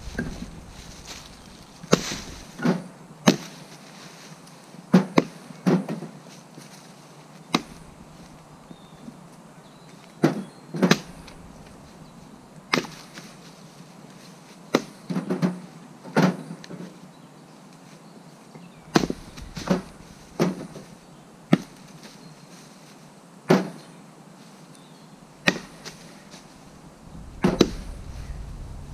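Axe splitting firewood rounds: sharp wooden knocks of the axe striking and splitting the logs, often two or three close together, every second or two.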